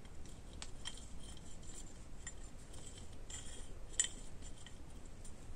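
Faint scattered clicks and light metallic clinks of small metal parts being handled; the sharpest clink comes about four seconds in.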